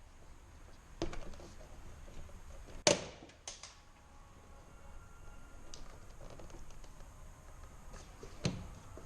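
Hand work on a car's interior door trim panel: four sharp clicks and knocks of plastic and tools, the loudest about three seconds in.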